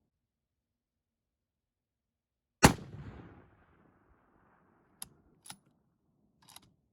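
A single 6.5 Creedmoor rifle shot about two and a half seconds in, its report echoing away over about a second. Three sharp clicks follow, the rifle's bolt being worked to chamber another round.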